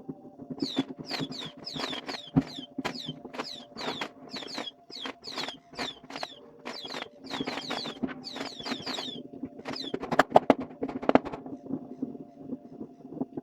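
Fireworks going off in a rapid string of sharp bangs and crackles, about two to three a second, with a brief falling hiss after each. About ten seconds in, a cluster of louder bangs follows.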